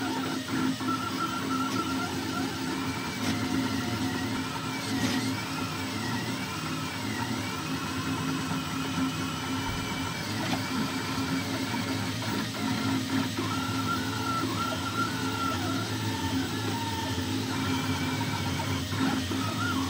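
Two delta 3D printers, a Mini Kossel Pro and a Kossel Air, printing at once: stepper motors whining in repeated rising-and-falling arcs of pitch as the carriages move, over a steady hum.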